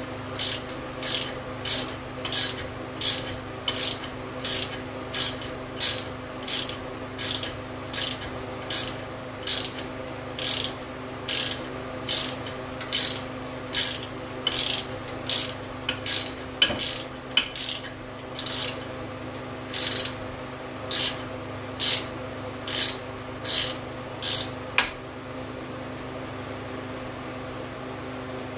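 Ratchet wrench backing out the last water pump bolt on a Chevy 350 small-block: quick back-and-forth strokes, each a short burst of pawl clicks, about two a second at first and slowing later. The bolt turns out easily once broken loose. It stops with a sharp click about 25 seconds in.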